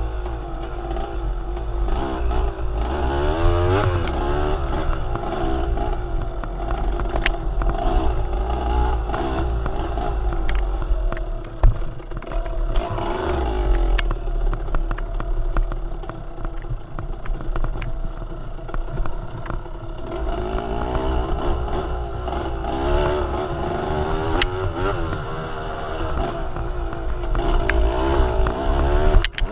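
A vehicle engine running while driving, its pitch rising and falling with the load, with a low rumble and constant small clattering and rattling.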